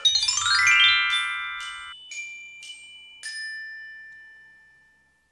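Short jingle of bell-like chime tones: a quick upward run of notes, then four single struck notes about half a second apart, each ringing out, the last fading away over about two seconds.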